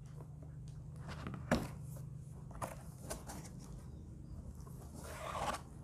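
Cardboard box being opened by hand: a few light taps and clicks of the cardboard flaps, then a brief rustle near the end, over a faint steady low hum.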